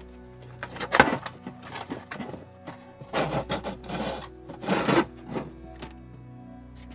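A clear acrylic literature holder and a sheet of cardboard being handled on a desk: a sharp knock about a second in, then scratchy rubbing and rustling as a marker works over the cardboard to mark out screw holes. Quiet background music runs underneath.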